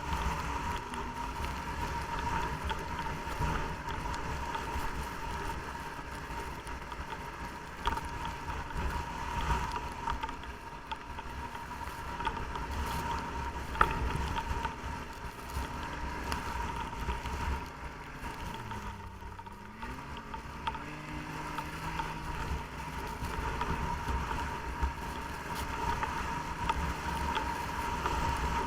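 Snowmobile engine running steadily under way, with a steady whine and a low rumble, and wind buffeting the microphone. About nineteen seconds in the engine pitch drops and then climbs back as the sled slows and speeds up again.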